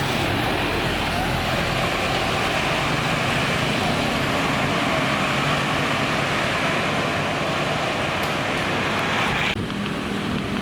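Road traffic noise at a bus terminal: a steady, noisy rush of vehicle engines, which drops away abruptly near the end.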